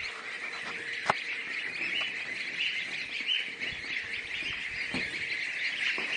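A dense flock of ducklings peeping all together in a continuous high chorus, with one short knock about a second in.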